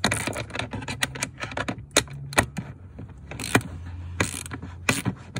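Ratchet wrench with a socket on an extension clicking in short irregular runs as it tightens the shifter mounting bolts.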